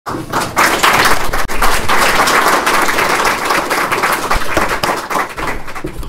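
Audience applauding: many hands clapping together in a dense, steady clatter that dies down near the end.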